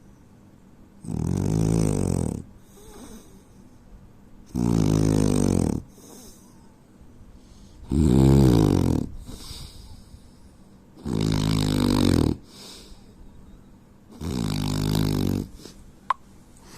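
A man snoring: five loud, low, rattling snores about three and a half seconds apart, each lasting just over a second, with softer breaths between them. A single sharp click near the end.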